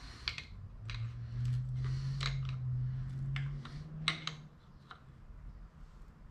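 Small metal clicks and clinks of a steady rest's adjusting parts being handled and set by hand. Under them a low steady hum, rising slightly in pitch, comes in about a second in and stops about four and a half seconds in.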